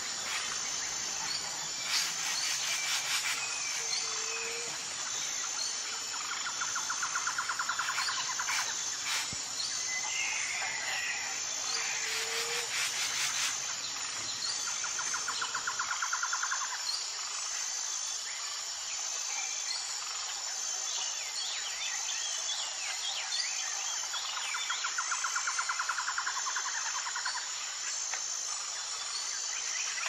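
Outdoor ambience of insects, with a steady high-pitched drone and trilling calls that come and go every few seconds, and birds chirping now and then. A few short crackling bursts sound in the first half.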